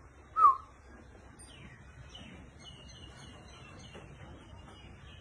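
Birds chirping: one short, louder call sliding down in pitch about half a second in, then faint, high, repeated chirps.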